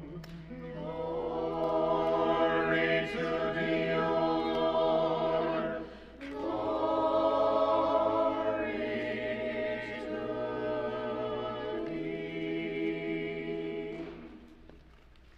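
Unaccompanied Orthodox church choir singing a chanted response in two phrases, with a short break about six seconds in; the singing softens in the second half and ends near the end.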